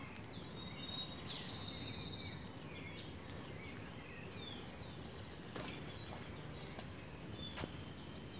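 Riverside outdoor ambience: a steady high insect drone and scattered bird chirps and calls over a low rumble. Two short clicks come in the second half.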